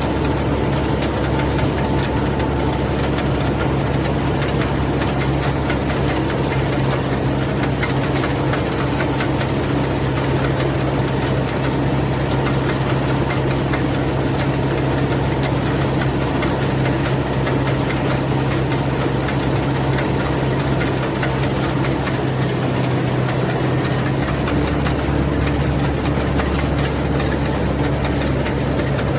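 Rice combine harvester running steadily, its engine giving a continuous low hum with no change in speed.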